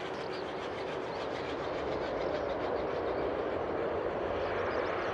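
Jet engines of an Airbus A330-200 rolling out on the runway after landing: a steady, even rumble that grows slightly louder about two seconds in. A faint steady tone fades out within the first second.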